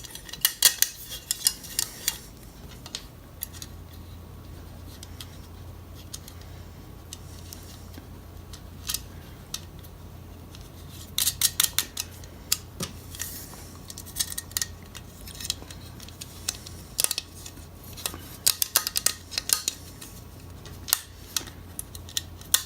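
Light metallic clicks and clinks in scattered clusters as small bolts and steel helmet parts are handled and fitted together, over a steady low hum.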